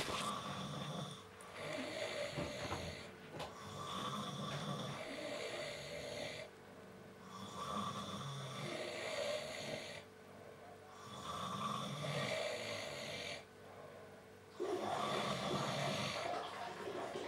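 A sleeping person snoring loudly in slow, regular breaths, one snore every three to four seconds.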